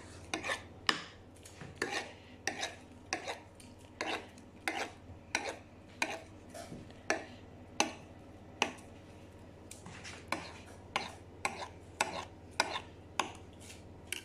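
Knife blade scraping and tapping along the rim of a glass baking dish, cutting off overhanging shortcrust pastry: a run of short, sharp strokes, about one or two a second.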